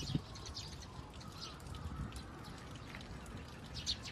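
Small birds chirping in many short, scattered high chirps, with a louder chirp near the end, over a steady outdoor background. A brief low sound comes right at the start.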